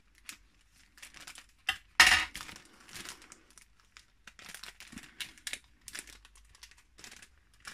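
Paper packaging crinkling and rustling as it is handled, in scattered short crackles, with one sharp, loud crackle about two seconds in.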